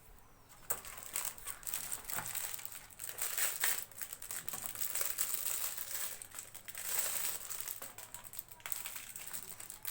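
Packaging being handled and crinkled, an irregular run of rustling and crackling that starts about a second in.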